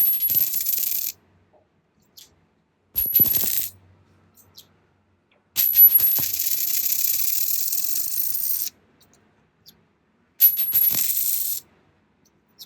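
A coin dropped onto a hard surface four times, each drop a sharp clink with a high ring, then bouncing and rattling to rest. The third drop rattles on for about three seconds before it settles.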